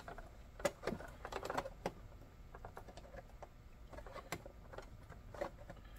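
Faint, irregular small plastic clicks and taps as a stuck plastic end cap is forced loose from a model passenger car body.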